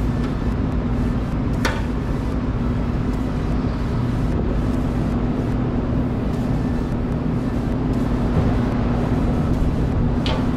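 Commercial kitchen exhaust fan running with a steady low hum. A sharp click about two seconds in and another near the end.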